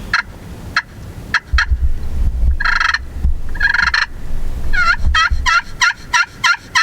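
Wild turkeys calling: a few short notes, then two rattling gobbles in the middle. Near the end comes a fast run of yelps, over a low rumble.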